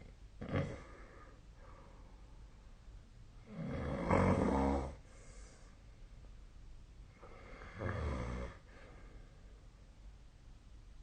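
A sleeping person snoring: a brief breath sound just after the start, then two snores about four seconds apart. The first, around four seconds in, is the longest and loudest, with a low rattle.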